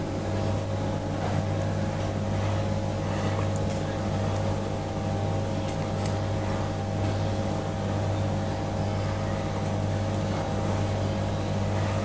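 A steady low mechanical hum with a few faint soft ticks scattered through it.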